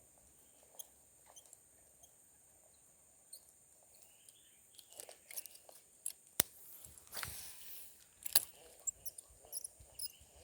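Scattered small clicks and ticks, with a sharp click a little after six seconds and a rustling swish about seven seconds in, over a steady high-pitched hiss.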